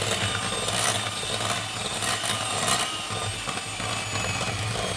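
Electric hand mixer running steadily with a low motor hum as its beaters work flour into creamed butter, sugar and egg, with a few sharp clacks.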